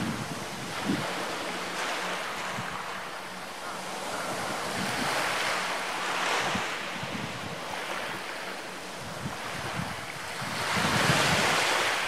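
Sea waves breaking and washing on the shore in a steady rushing hiss that surges louder about halfway through and again near the end, with wind buffeting the microphone.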